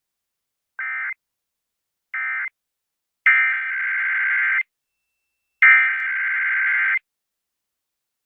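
Emergency Alert System SAME digital data bursts: harsh, buzzing screeches, two short ones about a second apart, then two longer ones of over a second each. The short bursts fit an end-of-message code closing the previous alert, and the longer ones fit the header of the next alert.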